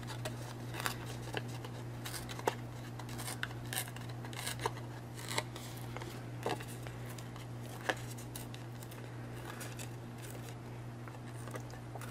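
Paper torn by hand in small nips along its edges to distress them: a string of short, irregular rips over a steady low hum.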